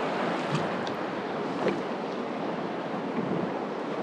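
Steady wash of sea water around a small kayak, with wind and a couple of faint knocks.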